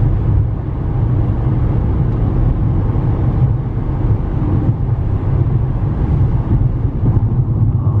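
Steady low rumble of a car driving along at road speed, engine and tyre noise heard from inside the cabin.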